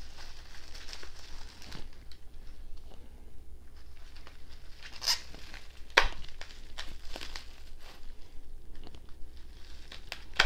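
Plastic bubble wrap crinkling and crackling as it is handled and pulled at, with some tearing of sealing tape; the sharpest crackle comes about six seconds in.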